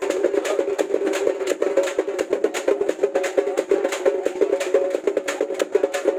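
Music starts abruptly: a melody line over quick, dense percussion strokes.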